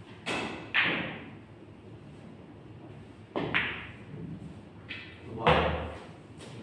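Pool balls being struck on a pool table: the cue tip hitting the cue ball and sharp clacks of ball on ball, in two bursts about three seconds apart. Near the end comes a duller, heavier thud, the loudest knock of all.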